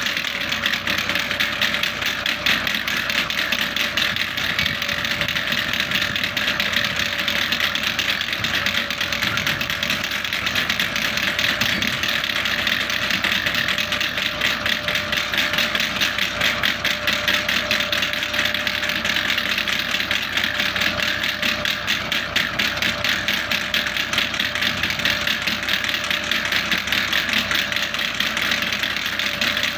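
Massey Ferguson 260 tractor's three-cylinder diesel engine running steadily while pulling a corn planter across the field, with a fast, even beat.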